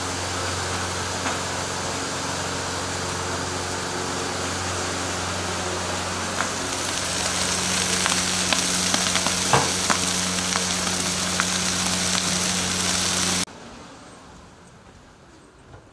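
Jerk chicken sizzling on a grill: a dense steady hiss with a few small crackles and a low steady hum underneath, growing a little louder about halfway through. It cuts off abruptly near the end, leaving only faint clicks.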